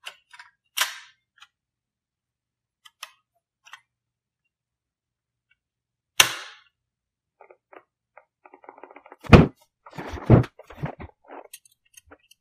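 Clicks and knocks of hard plastic and metal being handled as a 2.5-inch SSD is pressed into a laptop's open drive bay. There is one sharp click about six seconds in and two louder thumps near the end.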